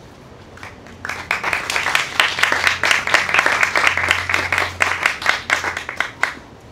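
Audience applauding at the end of a poem. The clapping swells about a second in and dies away near the end.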